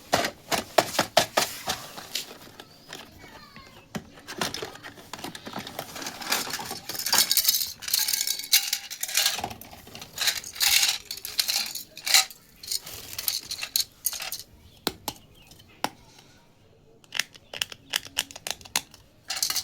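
Small plastic toy kitchen pieces, miniature dishes and utensils, clicking and clattering against each other as they are handled, in irregular bursts of sharp clinks.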